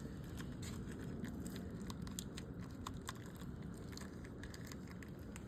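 Faint, scattered small clicks and rustles of hands handling small engine hardware, over a low steady background hum.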